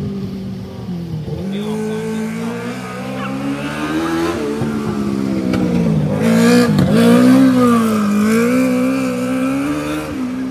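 The engine of a 600cc mini sprint car is running hard around the track, its pitch rising and falling as the driver works the throttle through the corners. It is loudest about six to eight seconds in, as the car passes closest, with a brief sharp dip in pitch partway through.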